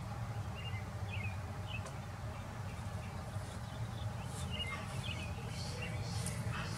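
Small songbirds chirping: short, quick chirps scattered through, over a steady low background rumble.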